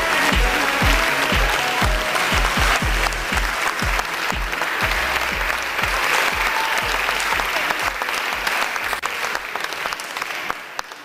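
Guests applauding, over music with a steady beat; both fade out near the end.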